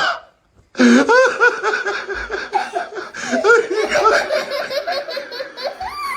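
A person laughing hard in a long run of rapid bursts, starting about a second in.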